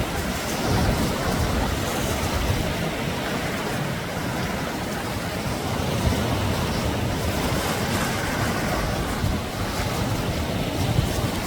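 Sea surf washing onto a beach, a continuous rushing noise of breaking waves with a low rumble beneath.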